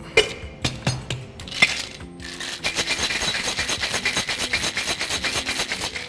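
A cocktail shaker with ice is closed with a few sharp clinks of glass seating into the metal tin. About two seconds in, hard shaking starts: a fast, even rattle of ice against the metal.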